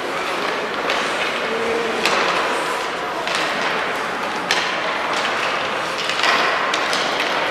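Children's ice hockey in an indoor rink: a steady scrape and hiss of skate blades on the ice, with sharp clacks of sticks and puck now and then.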